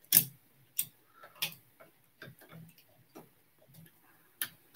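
Plastic LEGO pieces clicking and knocking as a part is handled and pressed onto a LEGO model: about eight sharp, irregular clicks, the loudest near the start.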